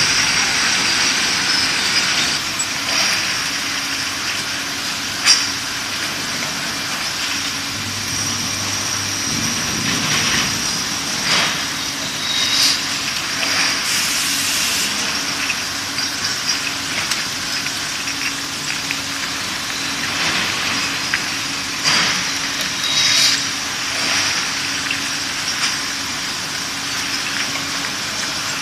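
Automatic glass bottle washer and its bottle conveyor running: a steady machine hiss with a faint hum, and a few sharp clinks of glass bottles knocking together on the infeed.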